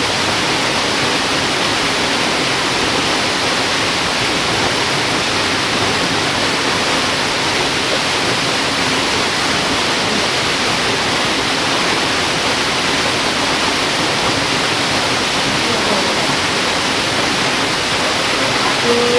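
Steady rush of fast-flowing river water, a constant loud noise without change.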